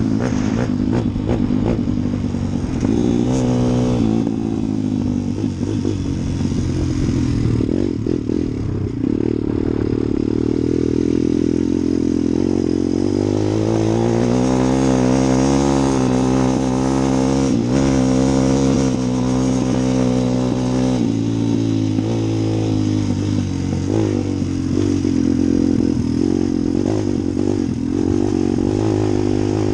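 A motor vehicle engine running without a break, its pitch rising and falling as it is revved up and eased off.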